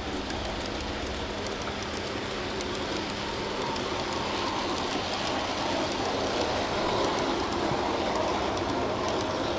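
G-scale garden-railway freight cars and caboose rolling past on brass track: a steady rumble of wheels on rail with faint ticking from the rail joints, a little louder about two-thirds of the way through as the caboose passes close.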